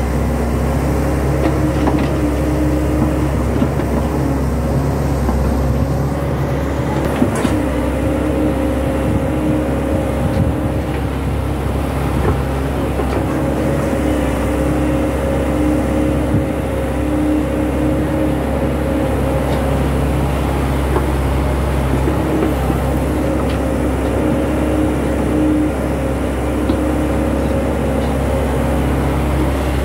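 SANY crawler excavator's diesel engine running steadily under working load while the machine digs, a constant drone with a strong low hum. A few faint knocks sound over it, including one about seven seconds in.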